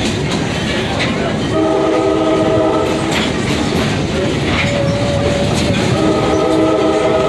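Excursion train's horn sounding two long, steady blasts, one about a second and a half in and another near the end, over the continuous rumble and clickety-clack of the cars on the rails.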